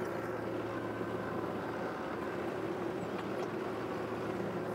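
Kubota B2261 compact tractor's three-cylinder diesel engine running steadily at low revs as the tractor drives slowly forward.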